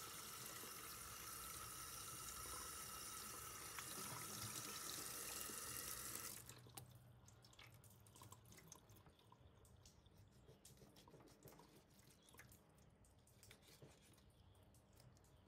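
Kitchen tap running into a metal pot in a stainless-steel sink, faint and steady, cutting off about six seconds in; then near silence with a few faint clicks.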